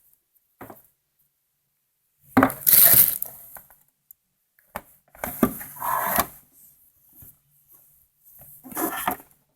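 Parts of a welding-inverter kit (cable and clamps) being handled, clattering and knocking in three short bursts, at about two, five and nine seconds in.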